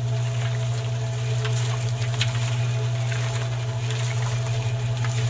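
Small electric motor of a miniature DIY cement mixer running steadily: an even, low hum with a fainter whine above it.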